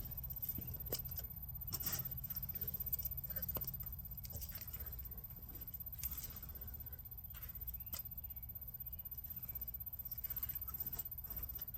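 Hands digging and rummaging through soil and grass for potatoes: scattered scrapes, rustles and small clicks of dirt and stones, over a steady low rumble.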